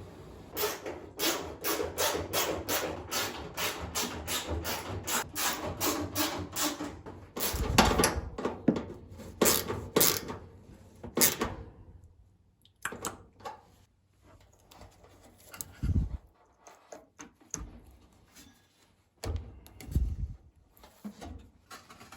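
Hand work on a dryer during reassembly: a quick run of sharp clicks, about three a second for several seconds, then a few heavy thumps and scattered knocks of parts being handled.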